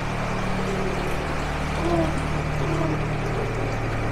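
Narrowboat engine running steadily at cruising pace, a low even hum.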